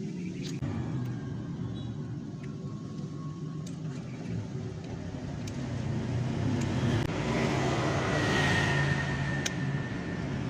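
Motor vehicle engine noise with a steady low rumble that swells louder for a couple of seconds late on, as if a vehicle passes, with a few light clicks.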